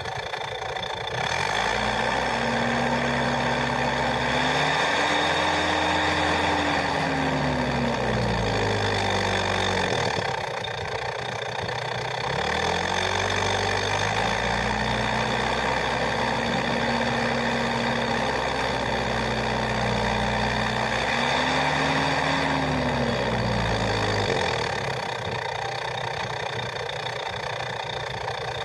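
Car engine running through an aftermarket muffler with a deep, growling exhaust note, revved up and held for several seconds, dropped back to idle about ten seconds in, then revved and held again with a brief dip before settling back to idle near the end.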